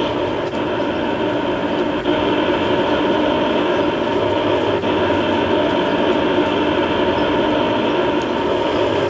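1/16 scale RC M60 tank running with its sound module on: a steady simulated tank engine sound played through the model's small onboard speaker, with a few faint clicks.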